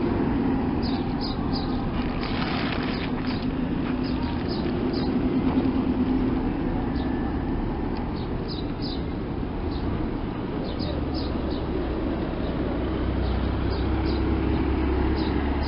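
Outdoor background of a steady low traffic rumble, which grows heavier about two thirds of the way through. Small birds chirp in short high calls, often in pairs, repeating throughout.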